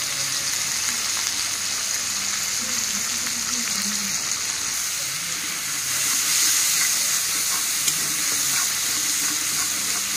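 Onion, garlic, green chilli and ginger with turmeric and coriander powder sizzling in hot oil in a kadai, stirred with a spatula. The sizzle gets louder about six seconds in.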